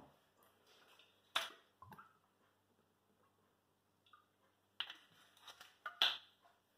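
Handling of a glass olive-oil bottle over a steel pot: a few sharp clicks and knocks, about a second in and twice more near the end, the last the loudest, with olive oil poured from the bottle in between.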